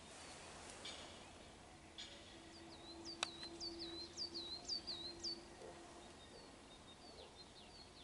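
A small songbird singing a quick phrase of about seven high notes, each hooked in pitch, through the middle, with fainter calls near the end. A faint steady low hum lies underneath during the song, and a single sharp click sounds just as the phrase begins.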